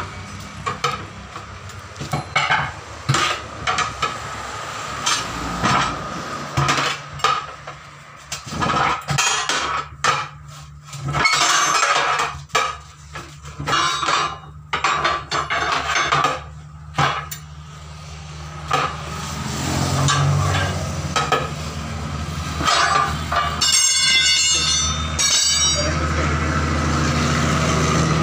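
Steel tyre levers clanking and scraping against the steel rim of a tractor wheel as the tyre bead is pried over it: irregular metallic knocks with a short ring. A steady low motor hum runs underneath, louder in the second half.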